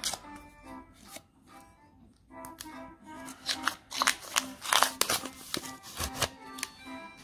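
Paper wrapper of a roll of 2 euro coins being torn open by hand, a run of sharp crackles and clicks that is loudest about four to five seconds in, over background music.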